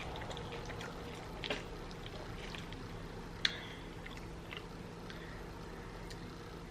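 A person chewing saucy turkey-leg meat: wet mouth smacks and clicks at irregular moments, the sharpest about three and a half seconds in, over a faint steady hum.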